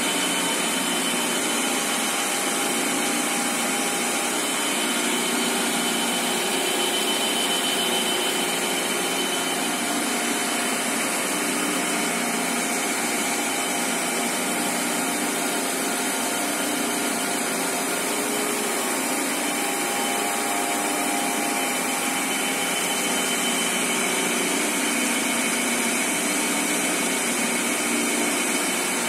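A high-speed tissue-paper slitting machine running steadily, its rollers and fast-moving paper web making an even whooshing machine noise with a thin high whine.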